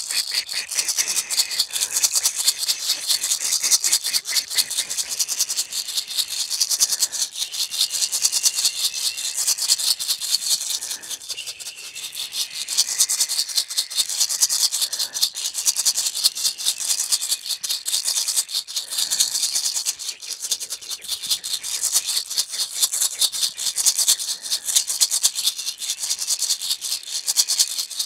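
Hand-held maracas (small round rattles) shaken rapidly and continuously close to a person's head, a dense, fast rattling that eases off briefly twice.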